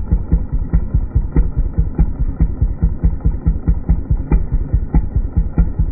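An engine idling with a steady, regular low throb of about six pulses a second.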